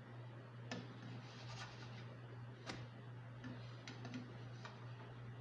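Banana-oat pancake cooking in a non-stick frying pan: faint, scattered ticks and small pops from the hot pan, about one a second, over a steady low hum.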